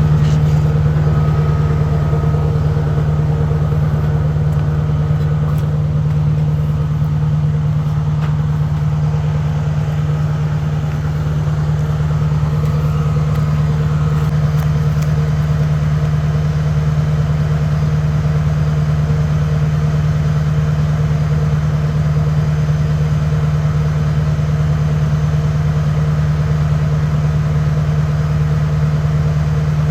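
An engine running steadily at a constant speed, with no revving or load changes.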